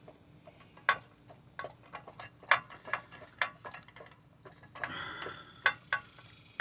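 Irregular light clicks and taps of the float-valve fittings being handled and tightened by hand, with a brief scrape about five seconds in.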